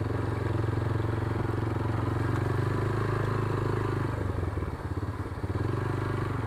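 Motorcycle engine running steadily on a rough dirt track. Its note eases off about four seconds in, then picks up again.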